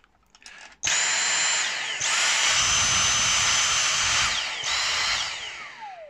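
Dyson V6 Trigger Pro cordless handheld vacuum's motor running with a steady high whine in three short bursts on the trigger, switched between economy and max mode. Near the end it cuts out and spins down in a long falling whine.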